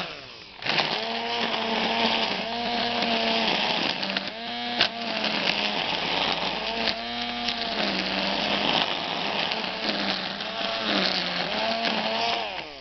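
Cordless battery string trimmer running and cutting long grass and tall weeds. Its motor whine sags in pitch now and then as the line meets thicker growth, then recovers. Near the start it spins down briefly and picks up again within a second.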